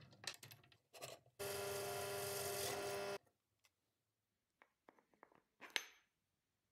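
Benchtop drill press running with a steady whine for about two seconds, then cutting off abruptly. After that come a few light clicks and taps from handling a wooden block, with one sharper click near the end.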